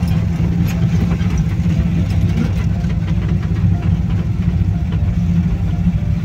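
Air-cooled VW Kombi's flat-four engine running at a steady low hum as the van drives along, heard from inside the cab.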